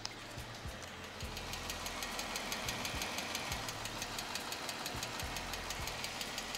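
Jeep Wrangler's 3.6L Pentastar V6 running after about five minutes of warm-up, with a rapid, even ticking knock from the valvetrain over the engine hum, mainly from the passenger-side cylinder bank. It is the rocker-arm tick that the mechanic repairs by replacing the rocker arms. The ticking grows louder about a second in.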